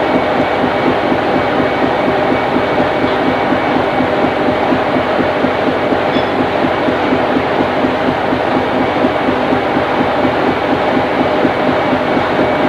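Fishing trawler's engines and deck machinery running steadily: a constant hum under a loud, even mechanical din.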